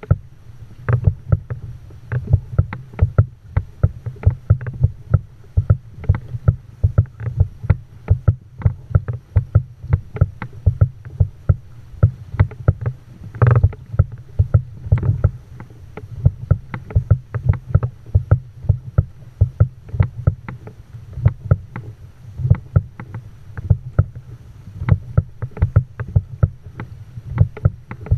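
Pedal-driven kayak moving through calm water: water slaps and knocks against the hull and fittings in quick irregular taps, several a second, over a low steady rumble.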